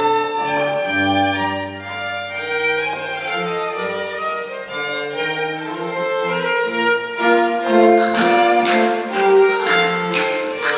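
Live baroque ensemble playing a 17th-century dance tune on bowed strings, with a held low bass note early on. Sharp, regular percussive beats join about eight seconds in.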